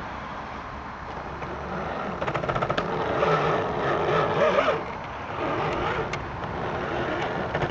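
Drive motor and gears of a scale RC Land Rover crawler running as it creeps over a muddy bank, swelling and easing with the throttle, with a short run of rapid clicks about two seconds in.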